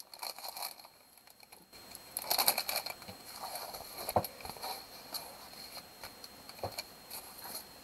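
Plastic wrap and paper of a diamond painting kit rustling and crinkling as they are handled and moved, starting about two seconds in, with a couple of light knocks.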